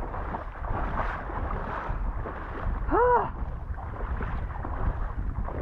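Marsh water sloshing and splashing steadily as someone wades through it in waders. About three seconds in comes one short call that rises and then falls.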